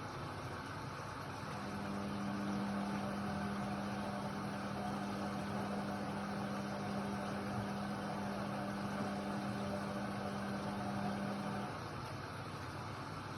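Indesit WIDL 106 washer-dryer running with a steady whirring noise. A steady hum comes in about a second and a half in, makes the machine louder, and cuts off near the end.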